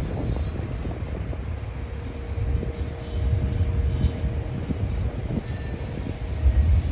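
Freight train of empty bulkhead flatcars rolling past, a steady low rumble of steel wheels on rail. A thin, steady wheel squeal joins about two and a half seconds in.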